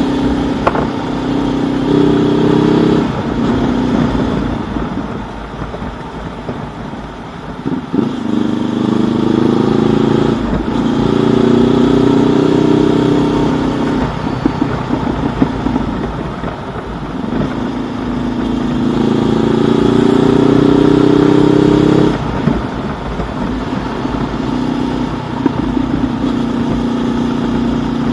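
A 2019 Honda CB500X's parallel-twin engine is heard through an aftermarket Mivv Suono-style exhaust under way. The note climbs in pitch in several long pulls under acceleration. Each pull drops back sharply before the next, for example about 3, 14 and 22 seconds in.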